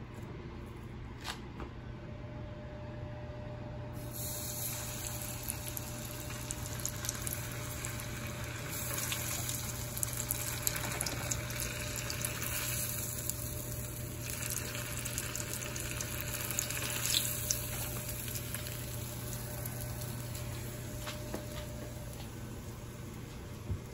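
Hot oil sizzling as a Takis-coated mozzarella stick fries in a pan, starting suddenly about four seconds in, with scattered pops and crackles in the middle stretch.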